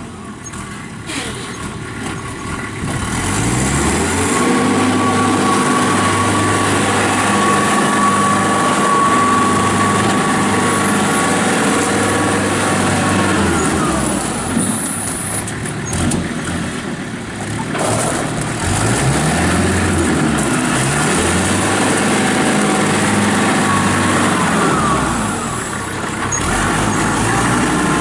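Kubota M5400 tractor's five-cylinder diesel engine revving from idle up to high speed, holding there, and dropping back to idle, twice.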